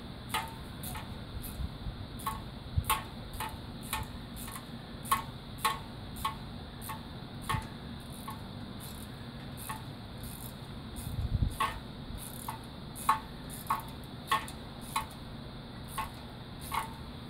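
Hand ratchet wrench clicking in a slow, even rhythm, about two clicks a second, as a 10 mm bolt is run in by hand. A single dull knock about eleven seconds in.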